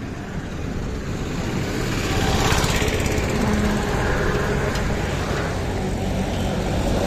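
Small pickup truck's engine running as the truck drives past at low speed, with road noise. It grows louder over the first two or three seconds, then holds steady.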